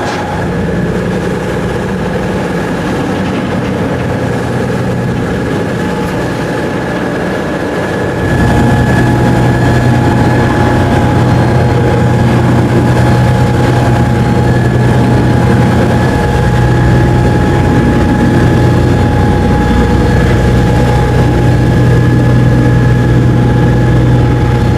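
Ferry's engine running steadily with a deep hum and a few steady higher tones. It gets louder and heavier about a third of the way in and then holds.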